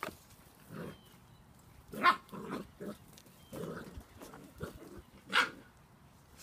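Spanish Water Dog puppies, seven weeks old, giving short yips and barks in play. It comes as a string of brief calls, the loudest about two seconds in and again near the end.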